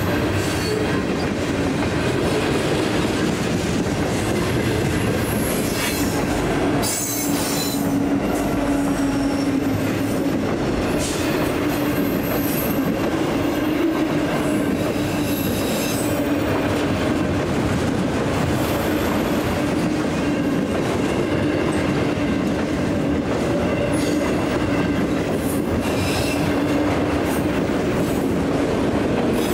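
Freight train cars rolling past: a steady rumble of steel wheels on rail with a continuous squealing tone from the wheels and scattered clacks as wheels cross rail joints.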